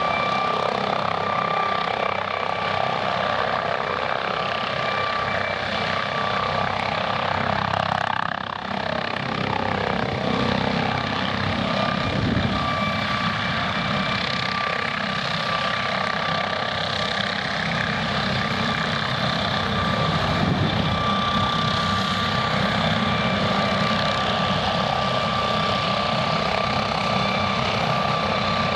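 MD 902 Explorer NOTAR police helicopter running, its twin turboshaft engines giving a steady high whine over the rotor noise, as it hovers low, settles onto the grass and keeps running on the ground with the rotor turning. The sound stays loud and even, with a short dip about eight seconds in.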